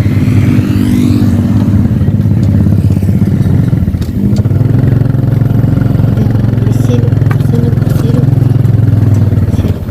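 Motorcycle engine running steadily under way. The engine note shifts briefly about four seconds in, then carries on.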